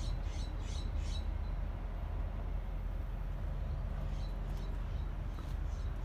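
Heavy diesel truck engine idling, a steady low rumble. A few short high chirps come near the start and again after about four seconds.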